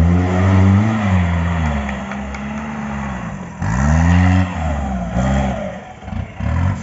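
Mahindra 4x4 jeep's diesel engine revving hard under load as it climbs a steep dirt bank. The revs surge up and fall back in repeated bursts: a big surge about halfway through, then a few short quick blips of the throttle near the end.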